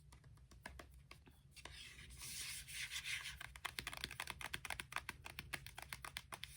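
Close-up handling sounds: a quick run of light clicks and scratches, with a papery rustle about two seconds in.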